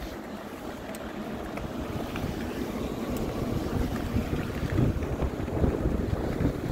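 Wind buffeting a phone's microphone while riding a fat-tire e-bike along a paved path, a gusty low rumble that grows louder partway through.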